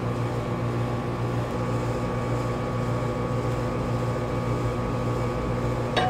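A steady machine hum, with a single sharp metallic click near the end as the chrome PTO housing is fitted against the engine.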